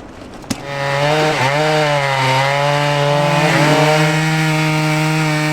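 Two-stroke chainsaw running at high revs, its pitch dipping briefly twice as it bogs under load cutting wood, then holding steady; a single sharp click comes just before it starts.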